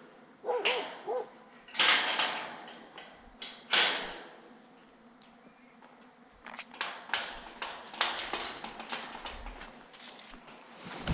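Insects droning in one steady high tone, with two loud clattering knocks about two and four seconds in and scattered lighter clicks later.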